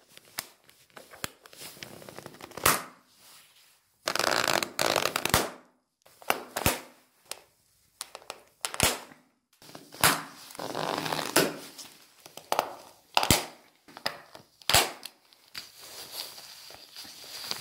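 Alpine ski boot buckles being fastened by hand: sharp metallic clicks and snaps of the levers catching on the ratchet ladders, a dozen or so spread out, some in quick clusters, with rustling between them.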